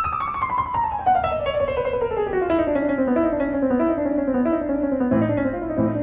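Piano music: a run of notes stepping steadily downward over about four seconds, then a lower accompaniment coming in about five seconds in.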